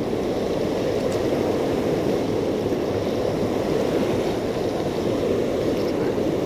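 Fast river water rushing over a weir and a boulder bed, a steady rush that holds at the same level throughout.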